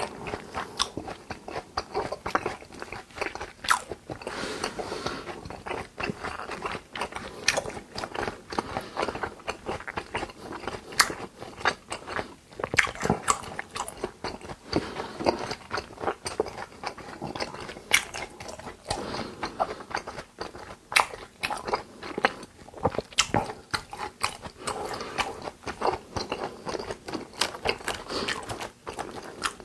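Close-miked eating sounds of a person chewing Korean raw beef yukhoe dishes: steady wet chewing with many sharp clicks and smacks of the mouth.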